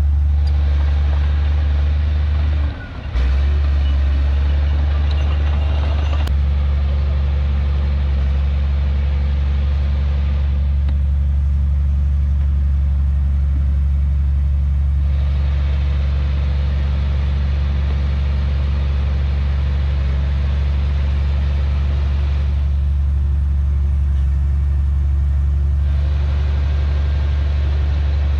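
Heavy diesel engine of earthmoving machinery running steadily with a deep, unchanging drone. The sound drops out for a moment about three seconds in, and a short click follows a few seconds later.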